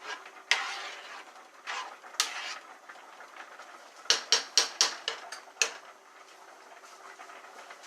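A utensil clinking against cookware: a few scrapes and knocks, then a quick run of about six sharp taps around the middle.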